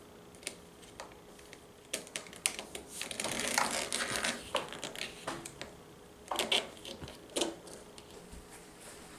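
Scattered light clicks and taps with rustling and scraping as a large decal is peeled and pressed by hand onto the hollow plastic body of a children's ride-on toy car. The rustling is densest about three to four seconds in, with a few sharper taps later.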